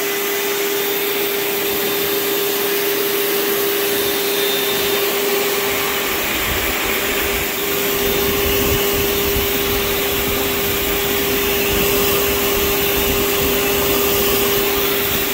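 Backpack vacuum cleaner running steadily with a constant motor whine and hiss of suction as its nozzle is worked over a sofa's fabric deck. A lower rumble joins about six seconds in.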